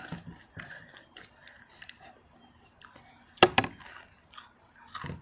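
Scattered crisp crunches of Takis rolled tortilla chips being bitten and chewed, with two sharp, louder crunches a little past three seconds in and another near the end.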